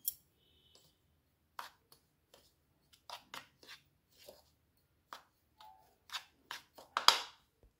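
Metal spoon stirring a dry flour-and-spice mix in a bowl: a string of short, irregular scrapes against the bowl, coming closer together and loudest about seven seconds in.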